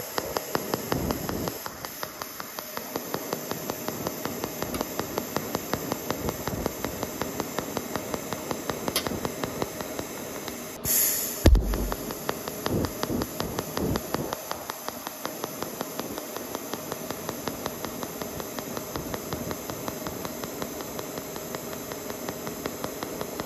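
DC pulsed TIG welding arc from an Everlast Hurricane 220 MTS-C on thin-gauge stainless steel, buzzing in a steady, even pulse rhythm. About eleven seconds in there is a brief louder hiss with a low thump.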